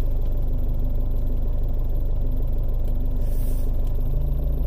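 2005 Jeep Liberty CRD's 2.8-litre VM Motori four-cylinder turbodiesel running steadily in reverse, heard from inside the cabin. Its low note changes and grows stronger about four seconds in as the Jeep, sunk into soft ground, is asked to move.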